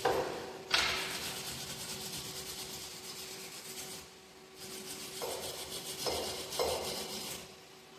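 MIG welder laying short beads on a steel truck frame: a steady crackling sizzle in runs of about three seconds, each stopping abruptly when the trigger is released, with a short pause between.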